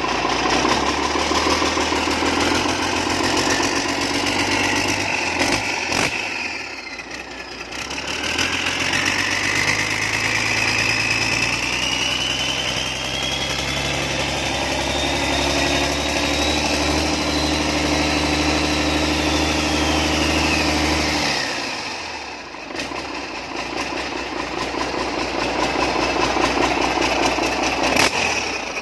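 Isuzu 6WG inline-six diesel engine of a Hitachi 450 excavator running on test just after starting. About eight seconds in the revs rise and a high whine climbs and holds, then about twenty-one seconds in it drops back to idle.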